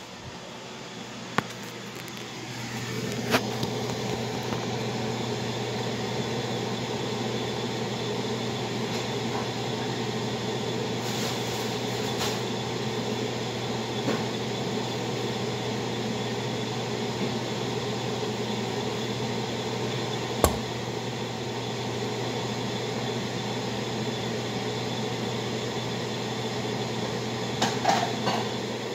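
Steady hum of a kitchen appliance's fan or motor, coming on about three seconds in and running evenly. A few light clicks and knocks sound over it, one sharper knock about two-thirds of the way through and a small cluster near the end.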